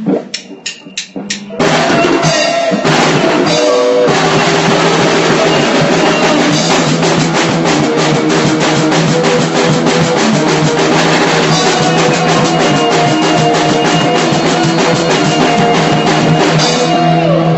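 Hardcore punk band playing loud, with drum kit and guitar: a run of about five sharp hits in the first second and a half, then the full band comes in together and plays on steadily.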